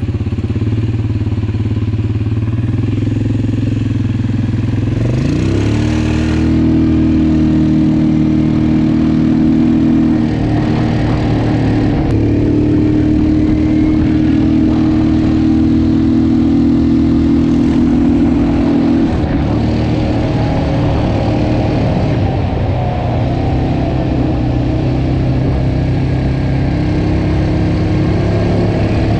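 Suzuki KingQuad 700 ATV's single-cylinder four-stroke engine running under way, heard from the rider's seat. Its pitch rises about five seconds in and holds steady, drops back about two-thirds of the way through, then picks up again near the end.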